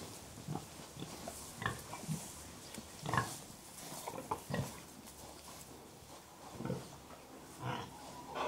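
Pigs grunting: short grunts at irregular intervals, about one or two a second, with a brief lull about two-thirds of the way through.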